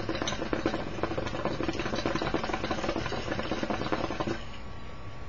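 KM Heart of the Lion hookah bubbling rapidly and steadily as smoke is drawn through the hose in one long pull, stopping abruptly about four seconds in.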